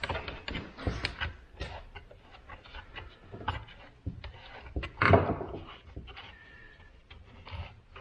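Irregular plastic and metal clicks and knocks from refitting the bar, chain and side cover on a Harbor Freight Atlas 40 V cordless chainsaw before tensioning the chain, with one louder knock about five seconds in.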